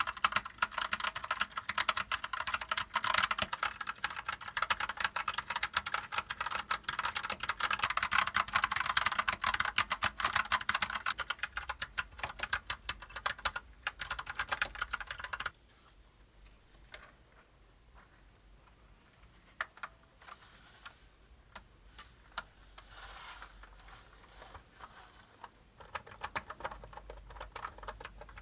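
Typing on a retro-style keyboard: a fast, steady run of key clicks that stops abruptly about halfway through, followed by slower, scattered keystrokes.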